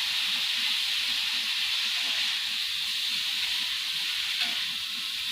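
Teri anchovies frying in hot oil in a pan, giving a steady, even sizzle.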